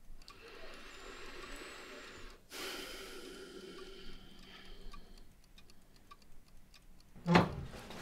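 Clocks ticking quietly, with a single loud thud near the end.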